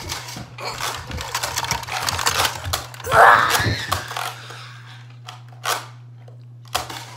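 Children scuffling and rustling in rough play, with clattering knocks, then a loud noisy burst about three seconds in and two sharp clicks near the end, over a steady low hum.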